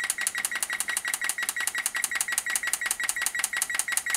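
Electric range's electronic control panel beeping rapidly and evenly, several short high beeps a second, as the cook-time button is held and the minutes count up.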